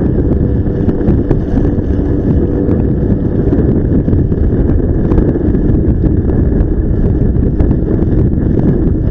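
Heavy wind buffeting the microphone on a moving Honda Gyro X three-wheeled scooter in typhoon weather, with the scooter running underneath. Scattered small knocks come through the wind.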